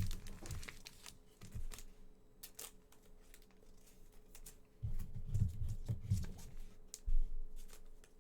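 Trading cards being handled and flipped through, card stock sliding and clicking with light rustles. A few dull bumps come about five seconds in and again near the end.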